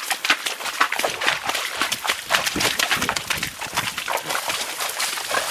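Horses pushing through leafy scrub, with branches and leaves scraping and rustling against them in a dense, irregular crackle.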